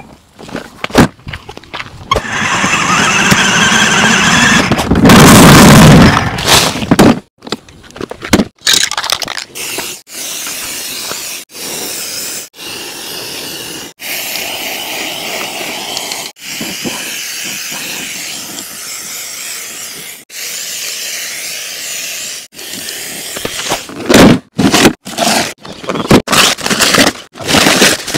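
Plastic film and paper wrapping being pulled and torn off a toy scooter: squealing rips and scraping, loudest a few seconds in, broken off by abrupt cuts into shorter stretches of tearing and rustling.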